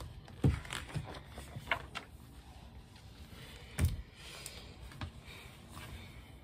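A picture book being handled and its pages turned: scattered light rustles and small clicks, with two sharper knocks, about half a second in and just before four seconds, the second the loudest.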